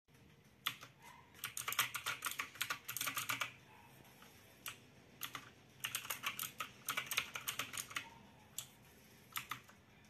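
Typing on a Havit mechanical keyboard with clicky blue switches: two runs of rapid key clicks, one starting about a second and a half in and one about six seconds in, with a few single keystrokes between and after.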